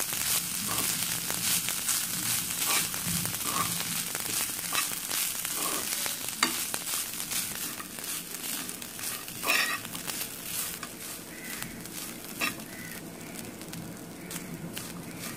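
Grated coconut with cashews and raisins frying in a pan, stirred with a metal spoon that scrapes and clicks against the pan over a steady sizzle. The stirring grows quieter about halfway through.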